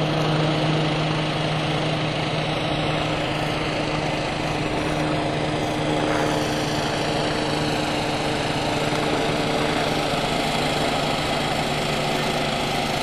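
An engine running steadily: a constant low hum with a few unchanging pitches over a rushing noise.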